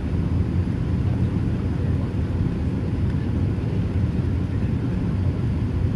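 Steady, deep rush of airflow and engine noise inside the cabin of a Boeing 787-8 Dreamliner descending on approach, heard from a window seat beside the wing.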